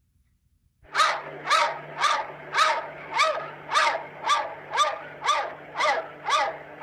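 Cat meowing in short, evenly spaced calls, about two a second, each rising then falling in pitch, starting about a second in.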